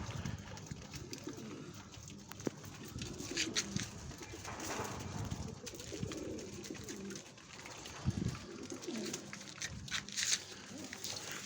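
Pigeons cooing on and off in low repeated calls, with a few short high chirps in between.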